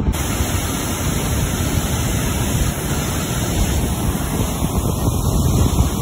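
Steady rushing noise of water pouring down the Hume Dam spillway from its open gates and churning into the river below.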